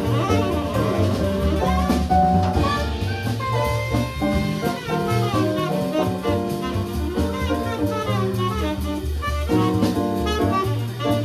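Live jazz from a small band: a keyboard and a drum kit with cymbals under a lead line of held notes, playing steadily with no pause.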